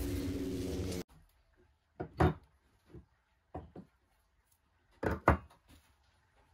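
Intro music cutting off about a second in, then a run of short, sharp wooden knocks on a stone worktop as a wooden casting flask for petrobond sand is handled and set down. The loudest knocks come as a pair about two seconds in and again about five seconds in.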